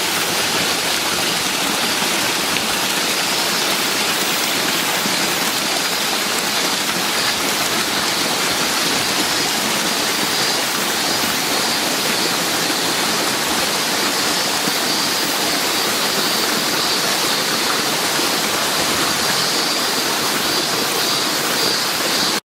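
Waterfall pouring into its pool: a steady, loud rushing hiss of falling water.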